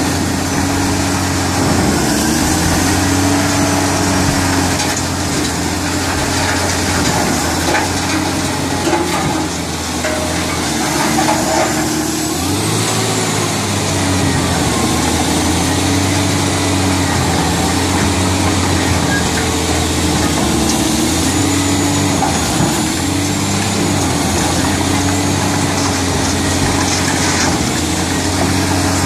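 Badger B600 tracked shredder at work on concrete with rebar: heavy diesel machinery running steadily under load, its engine note wavering as material is fed, with the clatter and grind of concrete being shredded. The engine note dips and recovers about twelve seconds in.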